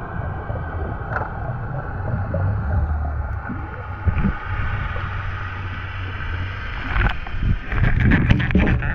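Underwater camera audio: a muffled, steady low rush of water against the camera housing as a freediver swims down, then a quick run of clicks and knocks from about seven seconds in as the diver reaches the sandy bottom and grabs at a spiny lobster.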